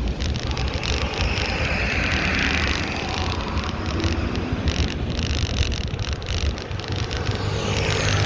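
Road traffic heard from a moving bicycle: a steady low wind rumble on the microphone, with cars passing, one swelling and fading between about one and three seconds in and another coming up near the end.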